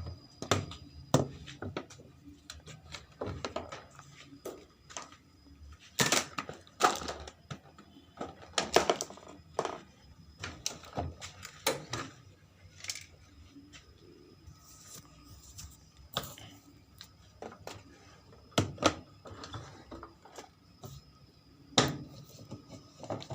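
Irregular clicks, knocks and clatter of hard parts and tools being handled, some single and some in quick runs, typical of working on a washing machine's panels and parts.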